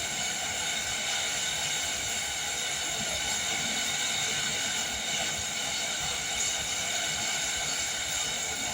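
Wind-driven rain falling steadily, an even hiss with no breaks or thunder claps.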